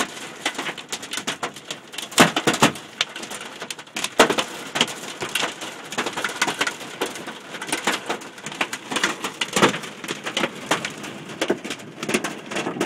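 Large hailstones, described as the size of tennis balls, hitting a car's body and windscreen, heard from inside the car. They make a dense, irregular clatter of hard strikes, with louder cracks about two, four and nine and a half seconds in.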